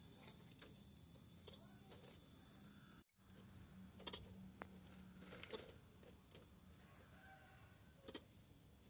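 Faint, scattered clicks and scratches of a caged squirrel's claws on the wire mesh and wooden perches as it moves about, busiest in the middle of the stretch, over quiet room tone.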